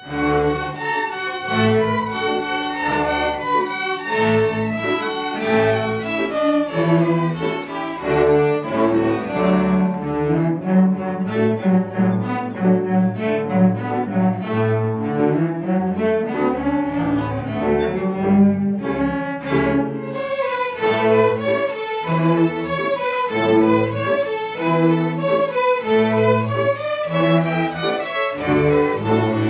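A string orchestra of violins, cellos and double bass starts a piece together and plays on, with the low strings sounding short repeated notes under the melody.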